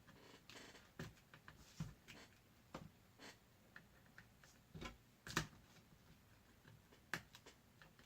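Faint, scattered clicks, taps and short scrapes of a plastic tool working at the battery connector inside an opened laptop, the loudest click about five seconds in.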